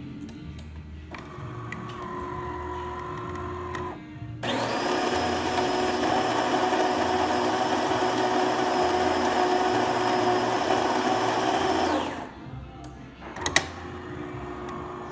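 DeLonghi Magnifica super-automatic espresso machine starting a shot. A motor hums for a few seconds, then the built-in grinder runs steadily and loudly for about seven seconds and stops abruptly. A sharp click follows, then a humming motor starts again near the end.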